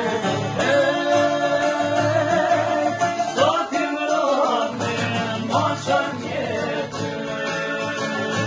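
A group of men singing an Albanian folk song together, accompanied by plucked long-necked lutes and an acoustic guitar. The voices hold long notes, with sliding, ornamented turns about halfway through.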